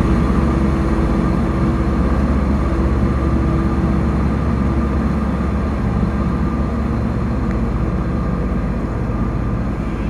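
Diesel locomotive engine running steadily inside a railway tunnel, a deep hum with a steady low tone, slowly fading as the train goes further into the tunnel.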